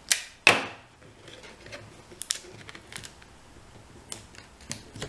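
Clear sticky tape being handled and pressed onto a cardboard tissue box: two short, loud tearing-like sounds near the start, then soft rustles and light taps as the tape is smoothed down.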